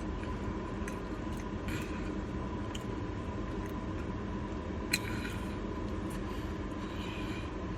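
Steady low background rumble with a faint, thin, steady whine, a few small clicks and rustles, and one sharp click about five seconds in.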